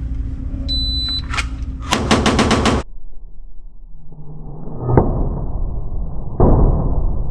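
A shot timer beeps once. About a second later comes a fast string of 9mm pistol shots from a Glock 19C with a Vantage Point Armory compensator, fired in a bill drill.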